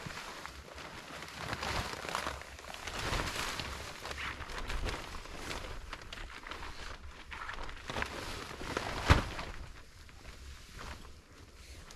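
Nylon fabric of a pop-up hub tent rustling and flapping as it is pulled and pushed into shape, with footsteps in snow and a sharp snap about nine seconds in.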